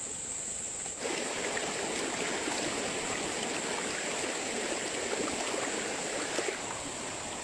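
Water running or pouring, starting abruptly about a second in, over a steady high-pitched insect drone.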